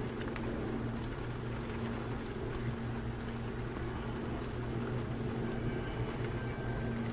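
Steady low engine hum with no change in pitch.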